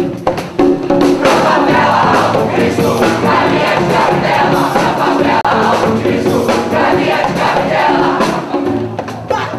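Music with a large crowd of voices singing together; it swells louder about a second in.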